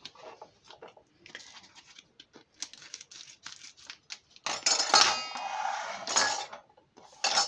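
Kitchen-counter handling: a plastic food packet rustling with small clicks. About four and a half seconds in comes a louder clatter of metal kitchen utensils with a brief ring, lasting about two seconds, and a short clatter comes near the end.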